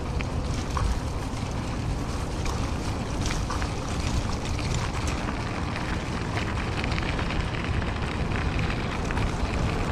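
Wind rushing over the microphone of a camera on a moving e-bike: a steady low rumble, with scattered small clicks and rattles as the bike rolls over a dirt and gravel track.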